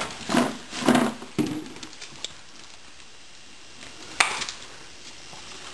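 Handling noises: a few short knocks and rustles in the first second and a half, then a single sharp click about four seconds in.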